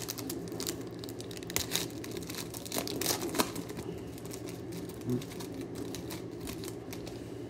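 Wrapper of a Chronicles baseball card pack being torn open and crinkled by hand, an irregular run of sharp crackles.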